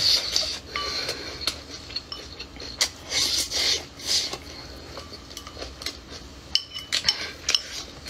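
Close-up eating sounds: chewing and mouth noises while eating pork ribs, with repeated short clicks of chopsticks against the bowl.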